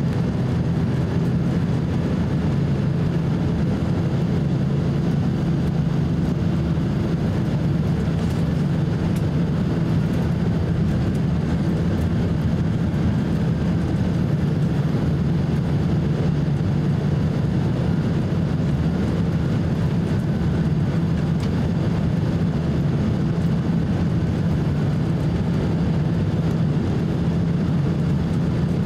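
Steady low cabin rumble of a Boeing 767-300 airliner on approach, from its jet engines and the airflow past the fuselage, heard from a window seat over the wing.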